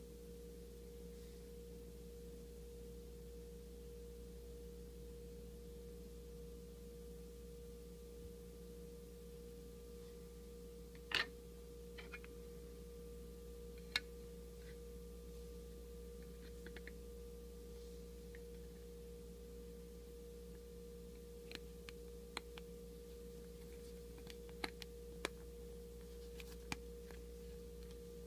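Plastic clicks and snaps from a goggle lens being fitted into the frame of Edge Eyewear goggles, over a steady faint hum. Two sharp clicks come about 11 and 14 seconds in, then a scatter of lighter clicks near the end.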